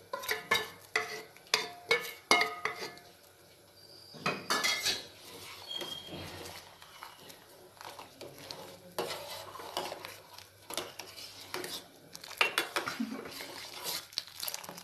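A steel ladle clinking and scraping against a steel saucepan as rice is stirred into thick, hot milk. There are quick ringing clinks in the first three seconds, then steadier scraping and stirring with occasional clinks.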